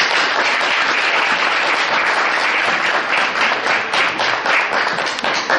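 Audience applauding, breaking out all at once into dense, steady clapping.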